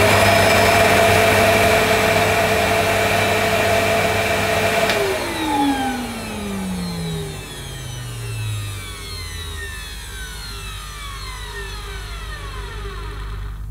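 A Hitachi CV-790 bagless vacuum cleaner's 1000-watt motor runs at full speed with a steady whine, first settling as it comes up to speed. About five seconds in it is switched off with a click, and the motor winds down slowly with a long falling whine. On this first switch-on the owner judges that it sounds okay.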